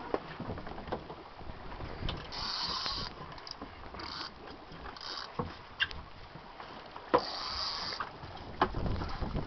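Water and wind noise around an anchored boat at sea, with short hissing spells and scattered clicks and knocks.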